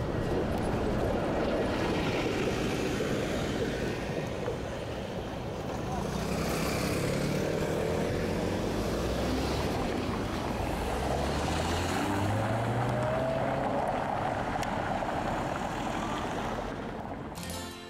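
Street traffic: car engines running and passing, with an engine note that rises in pitch about two-thirds of the way through. Music with guitar comes in right at the end.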